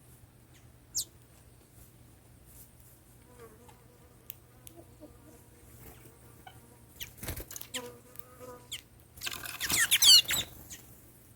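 Saffron finches calling: a single high, falling chirp about a second in, soft twittering in the middle, then a loud, rapid warbling phrase near the end.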